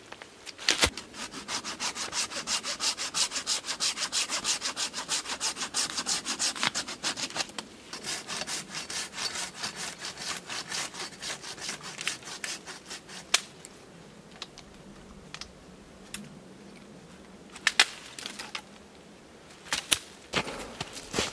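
Hand saw cutting through a dead branch, fast even back-and-forth strokes at about four a second with a short break halfway, then stopping. A few sharp knocks of wood follow.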